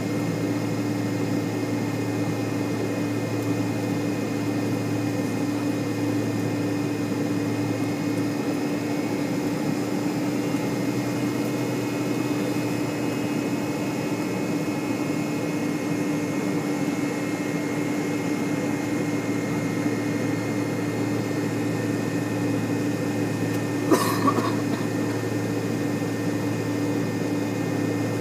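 Steady cabin hum inside an MD-80 jetliner on the ground, with a low drone. Near the end comes one brief sharp click.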